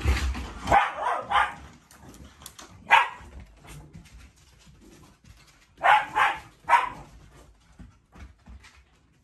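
Dog barking in short bursts during play: two barks about a second in, one near 3 seconds, then three quick barks around 6 seconds, with only faint scuffling after.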